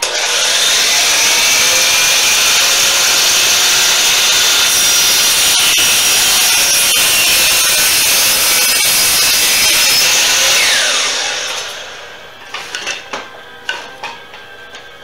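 DeWalt sliding miter saw (chop saw) starting up and cutting through wooden boards for about eleven seconds, loud and steady. The blade then winds down with a falling whine, followed by several sharp knocks and clatters of wood near the end.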